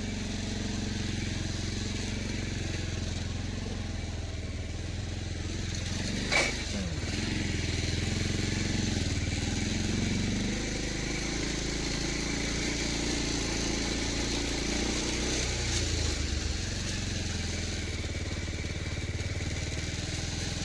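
Motorcycle engine running steadily while riding. About six seconds in there is one sharp sound whose pitch falls quickly.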